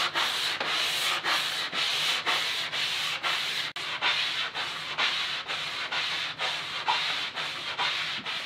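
A sanding sponge rubbed quickly back and forth along the edge of a glued-laminated wood longboard deck, in even rasping strokes about two and a half a second, smoothing the planed round-over.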